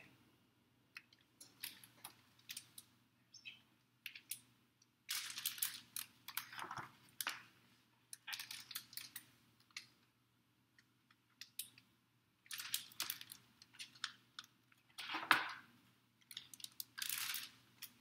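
Soft paper rustling and clicks from a large picture book's pages being handled and turned, in short irregular bursts.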